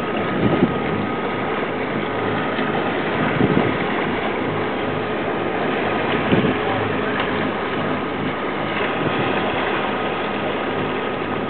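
Sportfishing boat's engines running steadily, a constant drone with a thin steady whine above it. A few brief louder sounds rise over it now and then.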